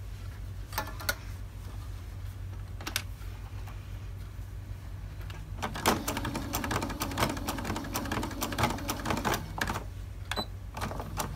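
Electric sewing machine stitching through fabric and batting. After a few isolated clicks, it runs from about six seconds in as a fast run of needle clicks over the motor's hum, then slows to a few last stitches.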